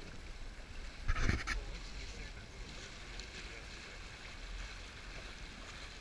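River current rushing and lapping along a drift boat's hull, with a short splash about a second in.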